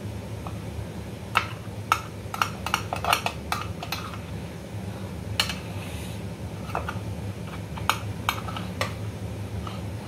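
Metal spoon clinking and scraping against a metal idli plate as it is worked around the edges of cooled, steamed idlis to loosen them from the moulds. An irregular string of sharp clinks, busiest from about one and a half to three and a half seconds in and again from about seven to nine seconds.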